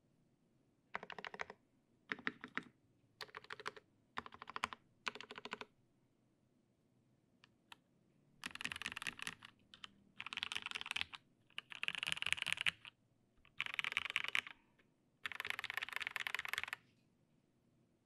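PC Salamander mechanical keyboard with lubed Gateron Giant switches, a PBT plate and GMK keycaps being typed on in runs of rapid keystrokes. There are five short runs, then after a pause five longer, louder runs.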